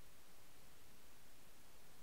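Faint steady hiss: the recording's noise floor, with no other sound.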